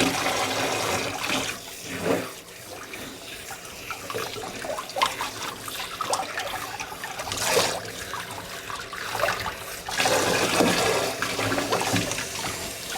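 Warm water running from a tap and splashing and trickling as a puppy is rinsed of shampoo, louder near the start and again about ten seconds in.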